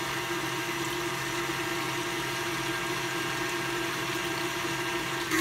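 KitchenAid stand mixer running on high with its wire whisk, beating instant vanilla pudding mix into milk in the steel bowl: a steady, even motor hum.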